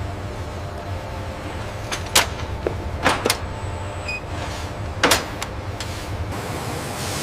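A steady low machinery hum, broken by a handful of sharp knocks and clicks, two of them close together just past the middle.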